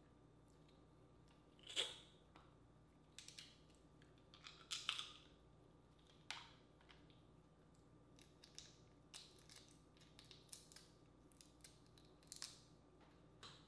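Dungeness crab shell cracking and snapping as it is picked apart by hand. Scattered sharp cracks and small clicks, a few louder ones among many faint ticks.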